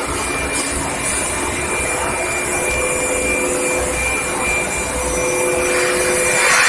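Steady machinery noise of an induction pipe-heating production line: a broad hiss over a low rumble, with several steady whining tones, growing louder near the end.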